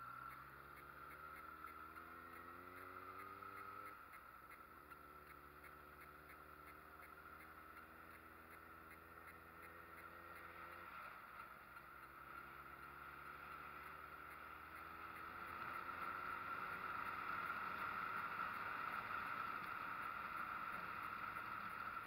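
Street motorcycle engine accelerating through the gears, its pitch climbing and then dropping at gear changes about 4 and 11 seconds in. A steady higher hiss swells louder in the last few seconds.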